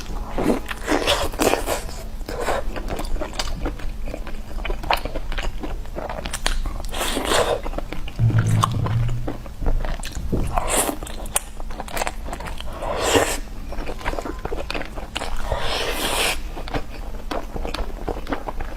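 Close-miked eating: a person biting into and chewing crunchy food in irregular crunches, with several louder crunchy bites.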